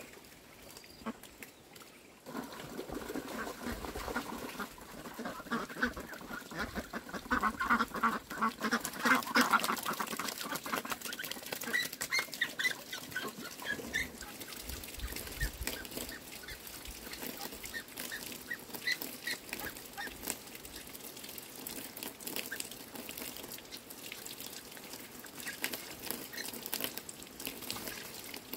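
A flock of white domestic ducks quacking, a busy run of calls in the first third that is loudest just before the middle, then scattered fainter calls, over a steady watery hiss.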